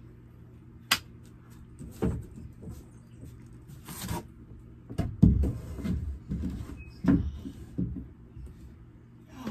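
Wooden boards and a beadboard ceiling panel being handled and set in place overhead: irregular knocks and bumps, with a sharp click about a second in and a busier run of low thuds from about five seconds in.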